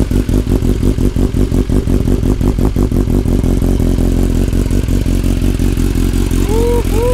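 BMW S1000R's inline-four engine running steadily at low revs through an Akrapovic exhaust, with a fast, even pulsing beat.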